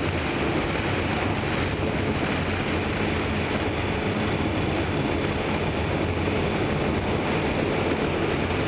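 BMW R1250GS Adventure's boxer-twin engine running steadily at cruising speed, under a constant rush of wind and road noise.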